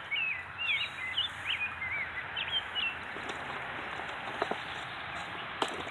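Small birds chirping in quick notes that slide up and down, thick for the first two and a half seconds and then dying away, over a steady outdoor hiss. A few faint clicks come in the second half.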